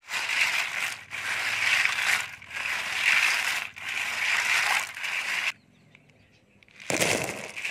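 Snail shells clattering against each other and the steel bowl, with water sloshing, as a hand stirs and scrubs a bowlful of live snails in four long strokes. A short pause, then a louder clatter near the end.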